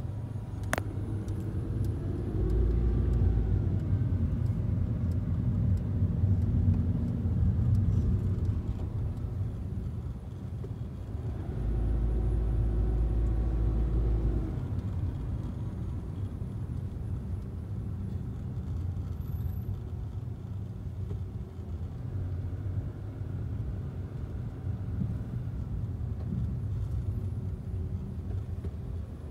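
Low, steady road and engine rumble heard inside the cabin of a car driving slowly, growing louder twice for a few seconds at a time. A single sharp click sounds just under a second in.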